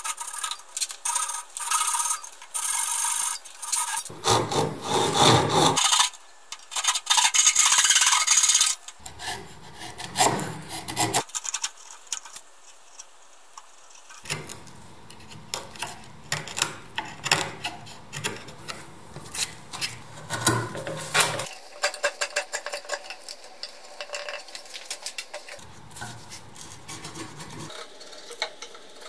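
Japanese handsaw cutting through softwood in quick, repeated strokes for the first several seconds. Then a chisel pares and chops waste from the joint in short scraping cuts with sharp clicks.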